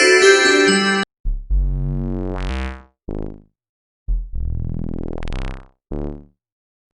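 Electronic synthesizer sound effect: a low synth phrase whose tone sweeps brighter and then dulls, followed by two short notes, played twice. Just before it, about a second in, a busier piece of music cuts off.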